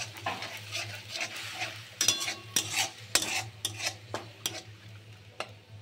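Steel spatula stirring and scraping ground tomato paste around a metal wok, the paste sizzling in hot butter and oil. Sharper scrapes and clicks of the spatula on the pan come from about two seconds in, and it grows quieter near the end.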